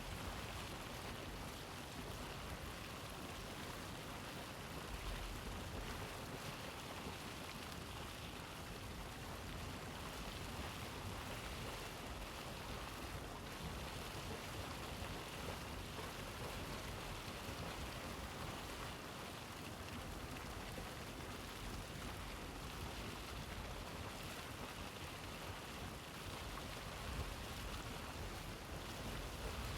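Hot water of the Deildartunguhver hot spring boiling, bubbling and splashing in a steady, even rush with a low rumble underneath.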